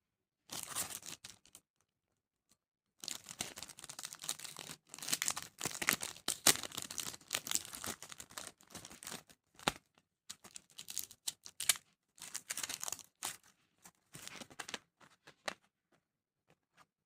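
Packaging being torn open and crinkled by hand, in irregular bursts of rustling with sharp crackles and short pauses, stopping a couple of seconds before the end.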